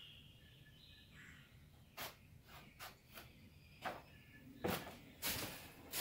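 Footsteps on a concrete driveway, starting about two seconds in at roughly two steps a second and getting louder as they approach. Faint bird chirps in the first second.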